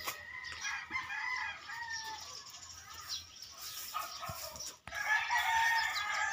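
Rooster crowing twice: one crow just after the start and a louder one about five seconds in.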